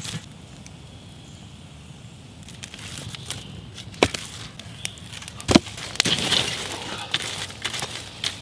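Charred, burning logs and hot coals being knocked and dragged aside in a stone fire ring: several sharp knocks of wood against rock, the loudest about four and five and a half seconds in, then a crackling, scraping shuffle of embers.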